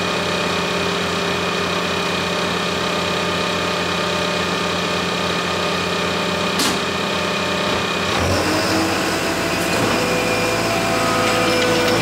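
ASV RT-120 compact track loader's diesel engine running at a steady idle, with one sharp click about six and a half seconds in. About eight seconds in the engine speeds up and a higher whine joins as the machine pulls away on its tracks.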